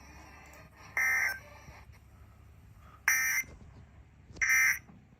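Emergency Alert System data tones: three short, harsh electronic bursts of digital data, one to two seconds apart. They come right after the warning's spoken text and fit the end-of-message signal that closes an alert.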